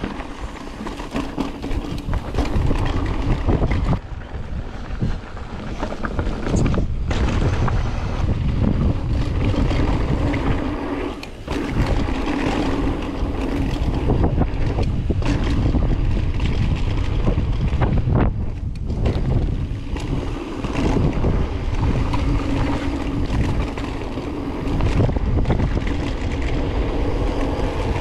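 Wind buffeting the microphone of a camera riding along on a mountain bike descending a dirt trail, over the rumble of the tyres, with frequent short knocks as the bike goes over bumps.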